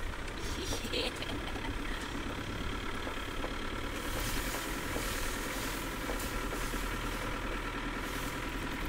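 Truck engine running steadily at low speed, a quiet even rumble as the vehicle drives slowly down a snowy road.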